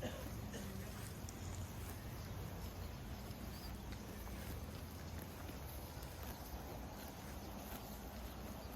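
Outdoor ambience around free-range dairy cattle: a steady low rumble with faint, scattered knocks and clicks of the animals moving.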